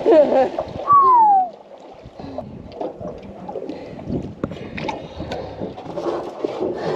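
A short exclamation near the start, then water sloshing and splashing with small knocks around a boat.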